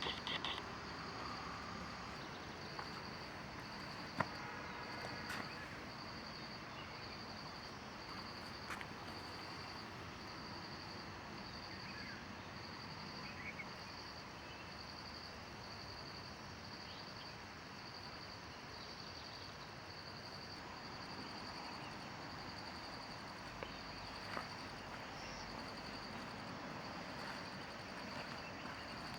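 An insect chirping steadily in a high, evenly spaced pulse over a steady background hiss, with a few faint ticks.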